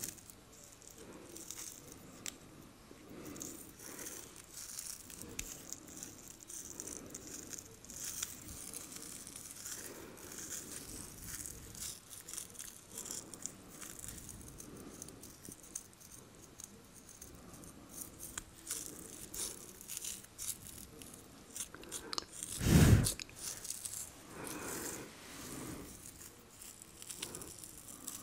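Close-miked long acrylic fingernails picking and scratching at hair and skin along a man's hairline: soft crackling, rustling and small clicks. About three quarters of the way through comes one brief, loud, low thump.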